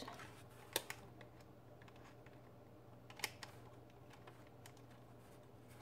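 Faint, scattered clicks and taps of hands handling a DSLR camera body while fitting a microphone cable's plug into its mic port, with two sharper clicks about a second in and past the three-second mark. A low steady hum runs underneath.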